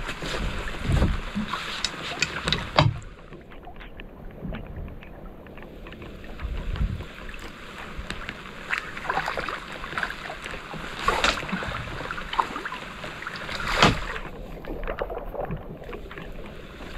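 Wind and rain noise on the microphone, with scattered knocks and clatter as a fishing rod and gaff are handled aboard a small boat. The noise is steadier and louder for the first few seconds, then drops, with sharper knocks about three, eleven and fourteen seconds in.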